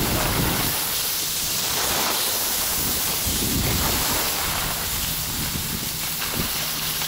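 Steady hiss of skis sliding over snow, swelling and fading every second or so, with some wind rumble on the microphone in the first second.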